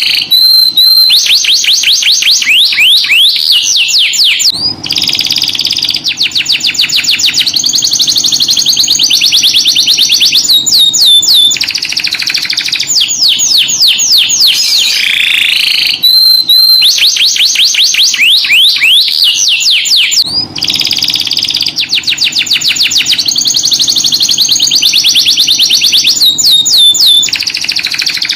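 Domestic canary singing a long, unbroken song of fast rolling trills, quick sweeping whistles and buzzy held notes. The same run of phrases comes round again about every 16 seconds, as in a looped lure recording.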